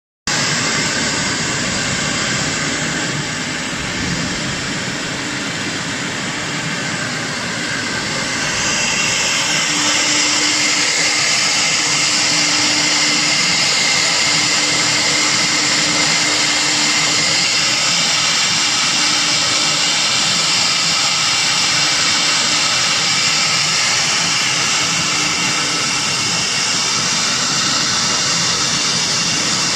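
TR-1530 CNC router's spindle running with its bit engraving lines into a sheet of board: a steady high whine over the hiss of cutting, which grows louder and brighter about eight seconds in.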